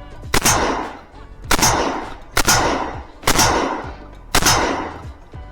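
Landor Arms LND117 semi-automatic 12 gauge shotgun fired five times in quick succession, about one shot a second, each blast ringing out afterwards. The shotgun is cycling reliably with high-velocity shells.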